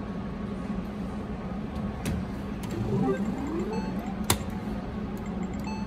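Video poker machine's electronic sound effects: a short rising chirp as a new hand is dealt, then short beeps and a sharp button click as cards are held, over a steady low hum.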